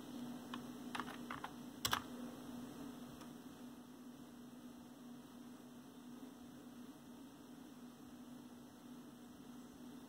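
Faint computer keyboard typing: about five key clicks in the first two seconds. After that only a steady low electrical hum remains.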